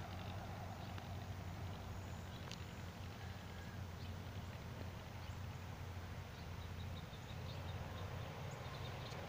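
Steady low engine drone, unchanging in level, with a few faint high chirps about four seconds in and again near the end.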